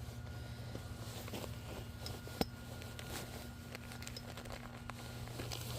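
A blower running with a steady low drone, under light scattered clicks and knocks and one sharp click about two and a half seconds in.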